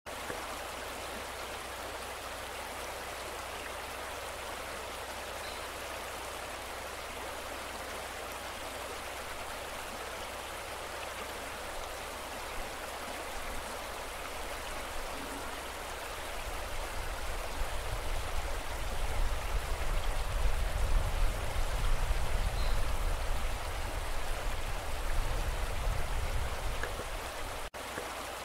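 Steady rushing of a small river flowing. About halfway through, a low, uneven rumble builds up and becomes the loudest sound, then cuts off just before the end.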